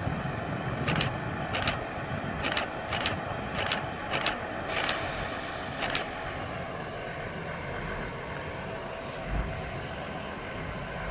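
Class 158 diesel multiple unit idling at the platform with a steady engine hum. About eight sharp clicks come at irregular intervals during the first six seconds.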